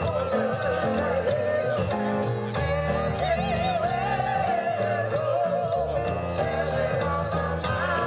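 Christmas-style music: a melody sung or played with vibrato over held bass notes, with jingle bells shaken on a steady beat.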